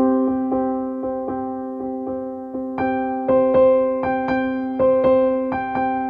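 Background music: a keyboard playing soft notes, struck several times a second in a steady, repeating pattern over a held low note.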